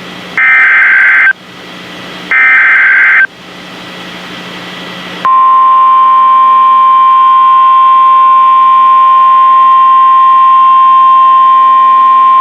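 NOAA Weather Radio Emergency Alert System transmission: two loud, roughly one-second bursts of SAME digital header data, the coded alert header, with radio hiss between them. About five seconds in, the steady 1050 Hz weather-radio warning alarm tone begins and holds without a break.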